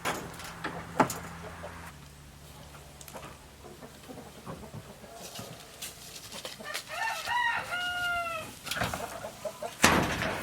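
A rooster crowing once, a drawn-out call of about two seconds starting some seven seconds in. A few sharp knocks sound around it, the loudest near the end.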